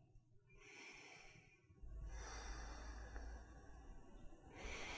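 Faint, slow breathing of a person holding a yoga stretch, with a low steady hum that comes in about two seconds in.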